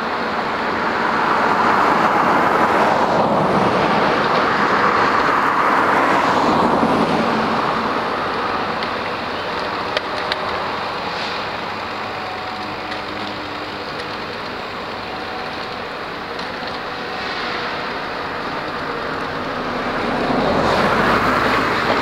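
Tracked log loader's diesel engine working steadily, rising twice in loudness under load, with one sharp knock about ten seconds in.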